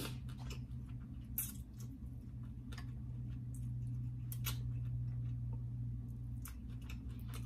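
Scattered soft clicks and squishes of eating: handling and chewing sauce-drenched crab and shrimp, over a steady low hum.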